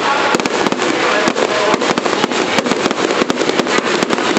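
Fireworks display: a dense, rapid barrage of bangs and crackles from aerial shells bursting one over another, with no break.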